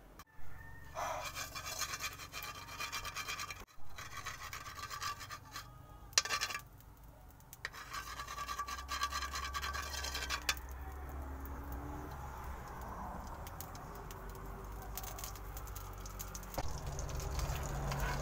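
A metal spoon scraping around the inside of a hot wok in three bouts of a few seconds each, then a softer, steady hiss from the pan with a low rumble underneath.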